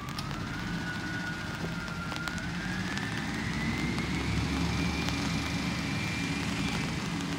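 Peterbilt 320 garbage truck with an Amrep elliptical body running, its engine humming under a thin whine that rises slowly in pitch over about five seconds and then holds steady.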